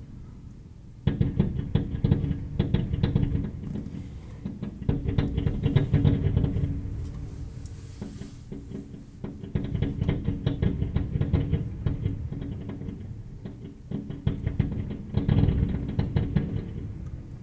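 Music with drums and guitar playing through a fireworks display, with the fireworks' bangs and crackle mixed in.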